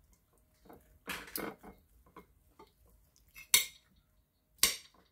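Metal fork scraping and clinking against a plate while cutting chicken, with two sharp clinks, one about three and a half seconds in and one near the end.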